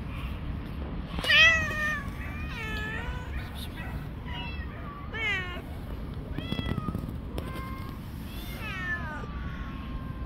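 Cats meowing repeatedly: about seven drawn-out meows that bend in pitch, the loudest about a second in.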